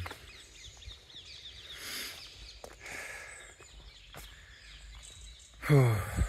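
Woodland ambience with faint bird calls. Near the end comes a short, louder low voiced sound from a person, like a hum or grunt.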